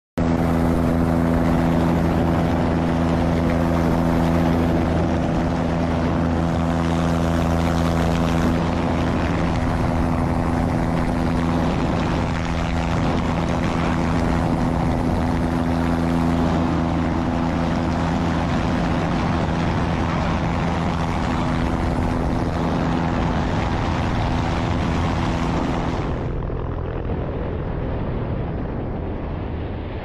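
Light propeller plane's engine running at a steady drone under heavy wind rush. About 26 seconds in the engine tone drops away and only the rush of air is left.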